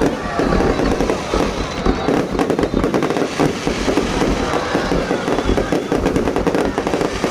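Fireworks display going off in a rapid, unbroken string of bangs and crackles.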